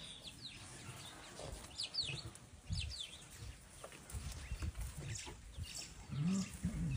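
Small birds chirping in quick, downward-sweeping notes, over scattered low thuds. Near the end comes a short, low call of two arching notes, the loudest sound here.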